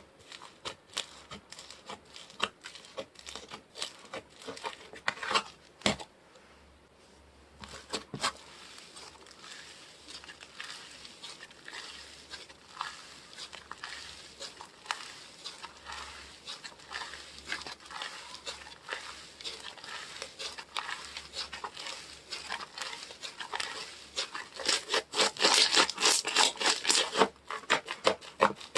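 Soft slime being squished and stretched by hand, giving a dense run of small sticky clicks, pops and crackles, busiest and loudest near the end.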